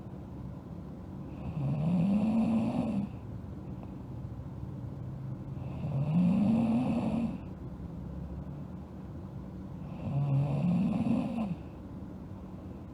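A sleeping girl snoring: three loud snores about four seconds apart, each lasting about a second and a half, with a pitch that rises and then falls.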